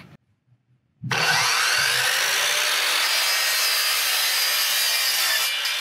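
Electric compound miter saw starting up suddenly about a second in and running steadily as its spinning blade cuts down through a white PVC board.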